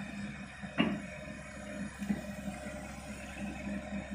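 Hydraulic excavator's diesel engine running steadily under load as it lifts and swings a full bucket of soil, with a sharp knock just before a second in and a lighter one about two seconds in.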